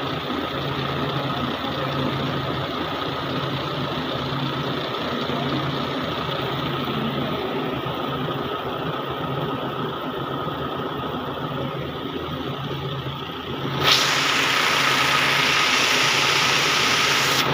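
Cord-braiding machine running steadily, its gears and bobbin carriers making a dense mechanical rattle over a low hum and a steady higher tone. About fourteen seconds in, a much louder hiss starts suddenly over it.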